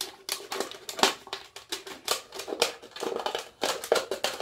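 Knife blade sawing through a thin plastic bottle near its neck: a quick, uneven series of sharp clicks and scrapes, several a second.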